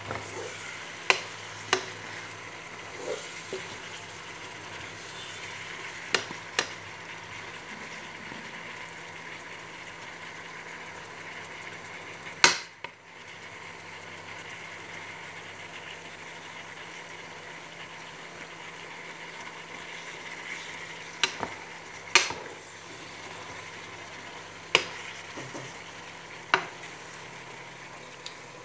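Ground meat, carrots and onion sizzling steadily in a pot while being stirred with a wooden spatula, with a few sharp knocks of the spatula against the pot, the loudest about halfway through.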